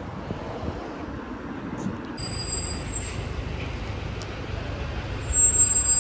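Street traffic noise: a steady low rumble of passing vehicles, swelling louder near the end, with faint high-pitched steady tones from about two seconds in.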